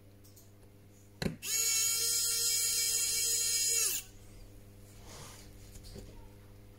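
Electric precision screwdriver turning a phone screw: a click about a second in, then a steady high-pitched motor whine for about two and a half seconds that stops abruptly.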